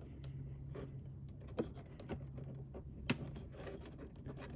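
Rubber edge-trim protector being pressed and slid onto the plastic edge of a car's liftgate latch: faint scattered clicks and rubbing, with a sharper click about three seconds in, over a low steady hum.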